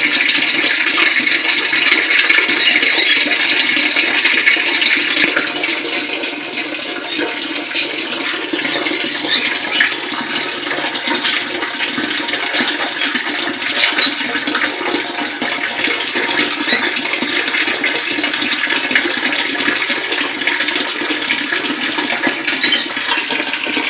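Water from a tap pouring in a thin stream and splashing steadily into a partly filled tiled water tank, a little softer after about five seconds.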